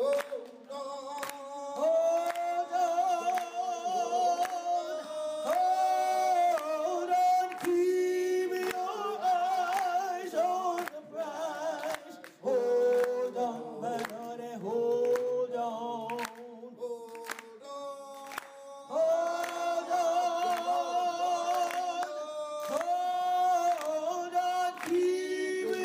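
Unaccompanied singing over the credits: long held notes with vibrato, sung in phrases with short breaks between them.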